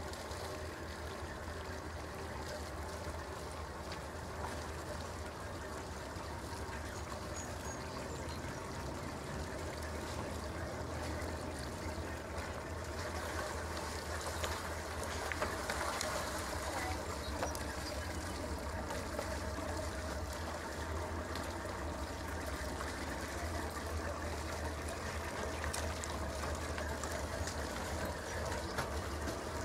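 Sea Ray cabin cruiser's engine idling at docking speed: a steady low rumble, with the wet exhaust gurgling and trickling at the stern.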